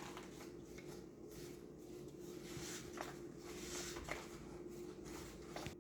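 Quiet room tone: a faint steady hum with light hiss and a few soft clicks or taps.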